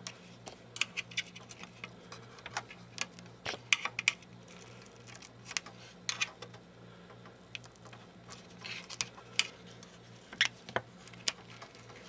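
Faint irregular clicks and crinkles of adhesive tape being peeled off and wires handled inside an opened LCD computer monitor, over a steady low hum.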